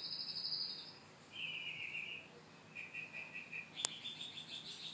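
High, pulsed chirping trills in the background: several short runs of rapid chirps at different pitches, one after another. A single sharp click comes about four seconds in.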